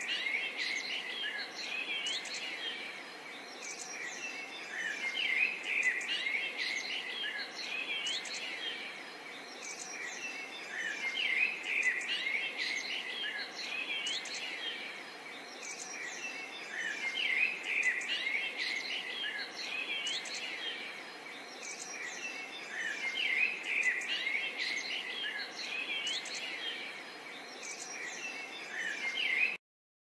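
A chorus of many birds chirping and calling together: rapid high chirps and short rising and falling whistles, swelling louder about every six seconds.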